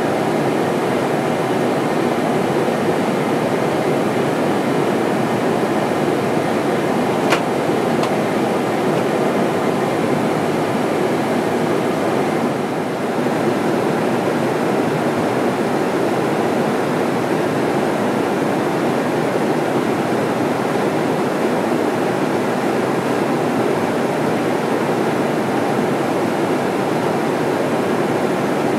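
Steady rushing roar of airflow and engines inside a KC-10 Extender tanker in flight, during hose-and-drogue refuelling of a fighter. A single sharp click about seven seconds in, and a brief dip in the roar near the middle.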